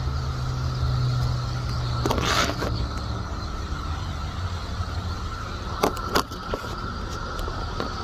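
Periodical cicadas chorusing in a steady, high-pitched drone, over a low engine hum that fades after about three seconds. A brief rushing noise comes about two seconds in, and two clicks come around six seconds.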